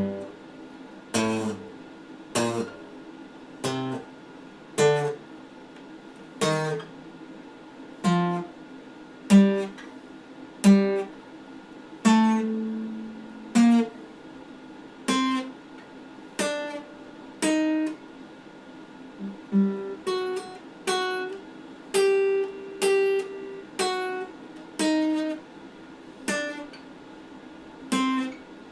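Acoustic guitar played slowly, one picked note at a time, each note left to ring and fade, roughly one a second. The notes come closer together after about twenty seconds.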